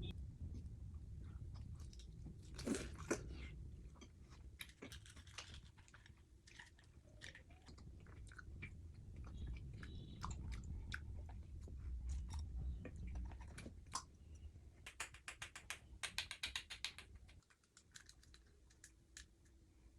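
A person chewing snack food close to the microphone: bites and crunches with scattered wet mouth clicks. There is a dense spell of crunching about three seconds in and a quick run of crunches past the middle.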